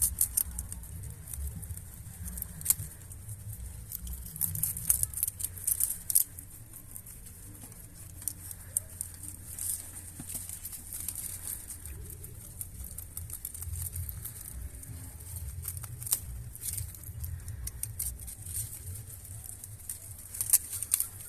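Rabbits chewing and tearing banana leaves: irregular crisp crunching clicks, thicker in some stretches than others, over a low rumble.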